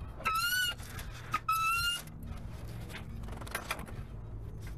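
Floor jack squeaking twice as its handle is pumped, the squeaks about a second apart in the first two seconds, with a click between them, over a steady low hum.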